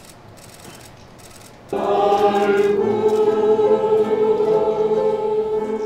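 Mixed choir of men's and women's voices starting to sing about two seconds in, in slow, long-held notes. Before that there is only faint room sound.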